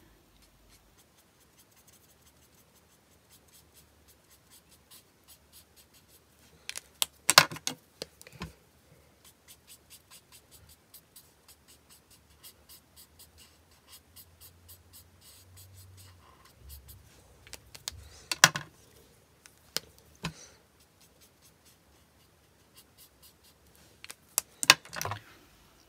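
Ohuhu alcohol marker working on white card stock: a run of faint, quick, scratchy nib strokes as the ink is laid down. Three louder sharp clicks stand out, about 7, 18 and 25 seconds in.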